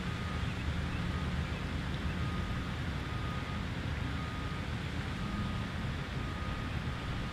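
Steady outdoor background noise: a low rumble with a lighter hiss over it and a faint thin high tone that comes and goes.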